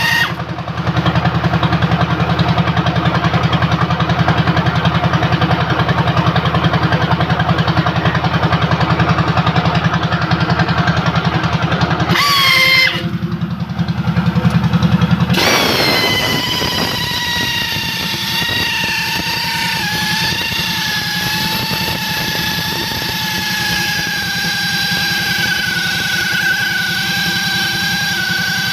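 A motor-driven machine runs with a steady whine over a low pulsing hum. Just before halfway it breaks off with a short rising whine, then starts again as a steady whine that sinks slowly in pitch.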